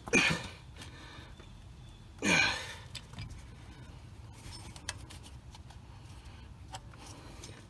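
A man's two short straining breaths, the second a grunt falling in pitch, as he heaves on the tool turning the engine's crankshaft. Faint clicks follow while the stretch-fit serpentine belt is drawn onto the crank pulley.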